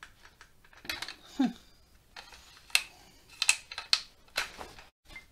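Lee-Enfield Mk III rifle bolt being fumbled into the receiver: a series of sharp metal clicks and clacks, about seven spread irregularly over several seconds.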